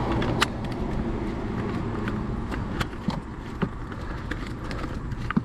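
A few scattered light clicks and taps from hand tools and screws as a part on a car's steering column is screwed back down, over a steady low background rumble.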